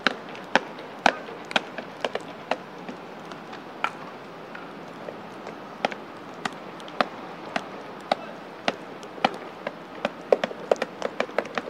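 Baseball practice: irregular sharp cracks and pops of baseballs being hit and caught, at times about two a second, over a steady outdoor background hum.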